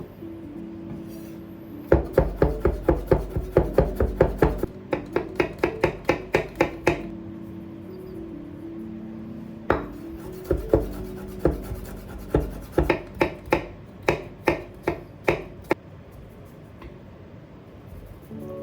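Knife dicing garlic on a cutting board: two runs of quick chopping strokes, about five a second, with background music underneath.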